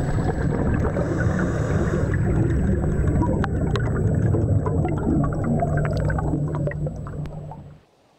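Underwater sound of a scuba diver's exhaled air bubbles, a loud, low gurgling noise with scattered sharp clicks. It cuts off suddenly near the end.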